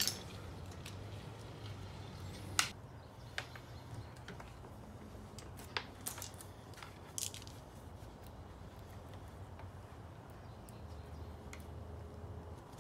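Scattered small clicks and taps as a two-stroke oil injection pump and its oil line are worked loose by hand and pulled from the engine case, over a low steady hum.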